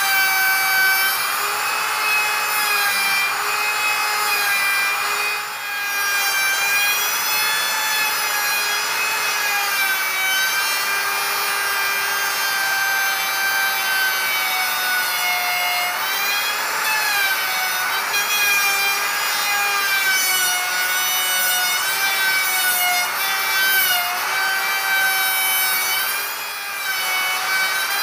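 Porter-Cable electric router running, its bit cutting into a rough-sawn timber beam to clear out a housing joint: a steady high motor whine over the rasp of the wood being cut. The pitch wavers slightly as the bit is worked through the wood, and the sound dips briefly twice.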